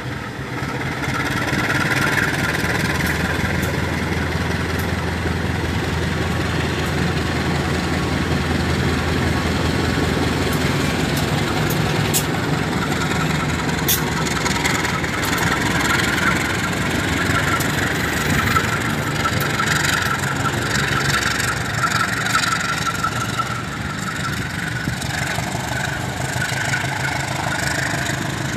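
Two diesel-electric locomotives in double traction, one a CC 203, running past close by with a steady low engine drone, followed by passenger coaches rolling past. Sharp clicks from the wheels come a few times around the middle, and the sound eases a little near the end as the coaches go by.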